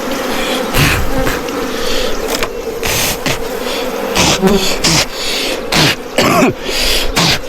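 A swarm of wild bees buzzing steadily, cut through by repeated short rustling noises.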